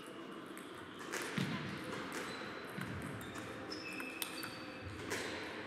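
Table tennis rally: the ball clicking off the bats and the table in quick, uneven succession, with a few brief high squeaks in between.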